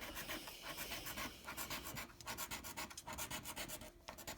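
A scratch-off lottery ticket being scratched, rapid rasping strokes across the card, several a second, with short pauses.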